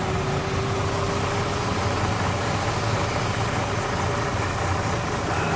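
2006 Suzuki Swift's petrol four-cylinder idling steadily, with a stored random-misfire code (P0300).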